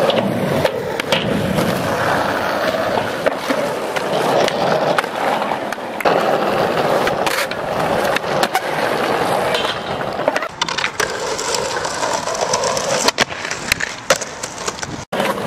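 Skateboard wheels rolling over concrete and asphalt, broken by many sharp clacks and knocks as the board pops, hits ledges and curbs, and lands.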